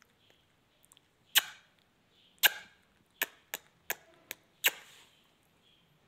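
A bunch of metal keys clinking and dropping as an Alexandrine parakeet picks at them with its beak: seven sharp clinks over about three and a half seconds, the later ones coming quicker.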